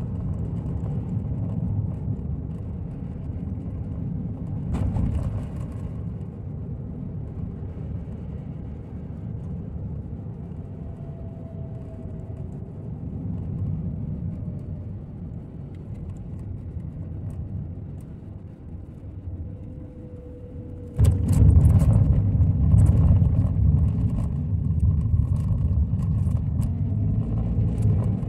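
Car driving on a narrow road, heard from inside the cabin: a steady low rumble of tyres and engine. About two-thirds of the way through it turns suddenly louder and rougher, with crackling.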